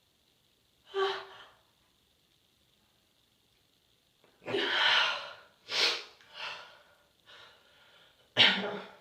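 A woman's breathy hitching gasps from an itchy nose, several in a row about halfway through, then a sneeze near the end, the loudest sound.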